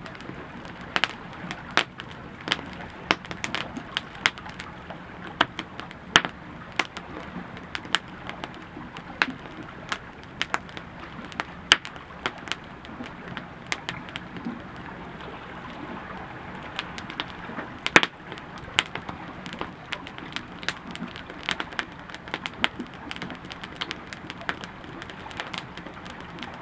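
Campfire crackling: frequent sharp, irregular pops and snaps from the burning wood over a low steady rush.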